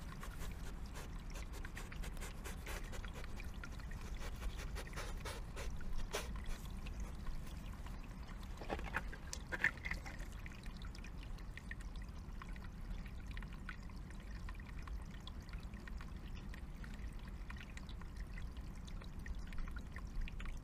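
Water trickling steadily in a small woodland stream, with a European badger rustling and scratching through leaf litter as it forages close to the microphone; the rustling is densest in the first several seconds, with a few louder knocks around the middle.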